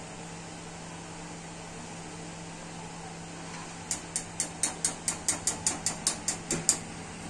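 A steady low hum. From about four seconds in comes a quick, even run of about fourteen light metallic clicks, about five a second, which stops suddenly.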